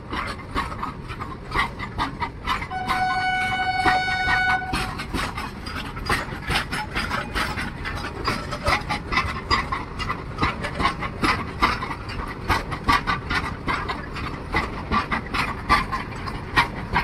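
Freight train wagons rolling past close by: a continuous clatter of wheels and bogies with dense clicking and clanking from the rails. A horn sounds once for about two seconds, a few seconds in.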